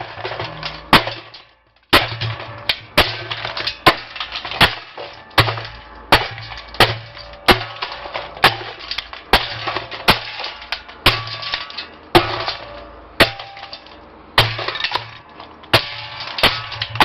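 A homemade smasher, a 15-pound weight on the end of a pipe, repeatedly pounding a pile of circuit breakers inside a steel drum, about one heavy strike a second. Broken plastic and metal pieces clatter and rattle between the blows.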